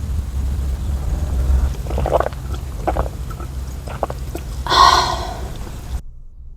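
A steady low rumble, with a few short mid-pitched sounds and a brief squeaky sound about five seconds in, cut off abruptly about a second before the end.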